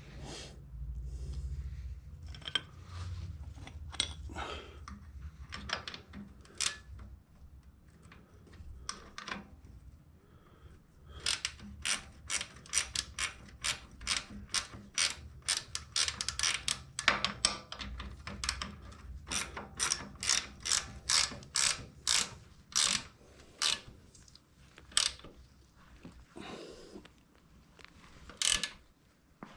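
Socket ratchet clicking as a bolt on the motorcycle's rear suspension linkage is turned: scattered clicks at first, then a quick, even run of two or three clicks a second for about fifteen seconds.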